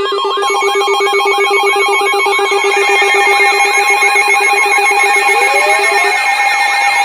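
Emergency alert attention alarm starting abruptly: a fast, ringing warble of about three pulses a second layered over several steady electronic tones. Near the end one tone slides upward.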